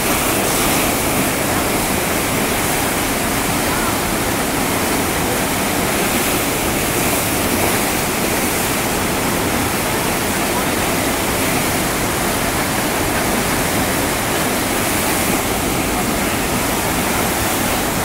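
River standing wave's whitewater rushing and churning steadily, loud and close.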